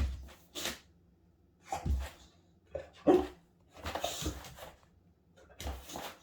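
Boxer dog making about six short, breathy huffs and snuffles, spaced irregularly with quiet pauses between them.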